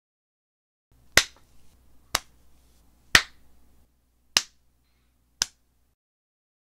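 Five sharp snapping clicks, about a second apart, over a faint low hum that stops near the end.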